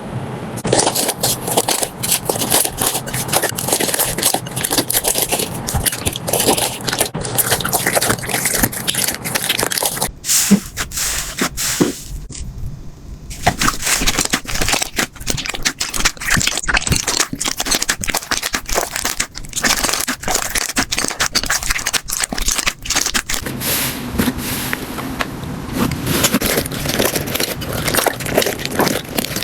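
Slime being handled and squeezed, giving dense crackling with many small popping clicks, and a brief quieter stretch about twelve seconds in.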